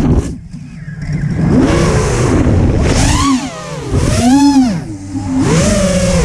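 FPV quadcopter's brushless motors and propellers whining, recorded from the camera on the quad itself. The pitch swoops up and down with the throttle: it drops away just after the start, then rises and falls in several punches.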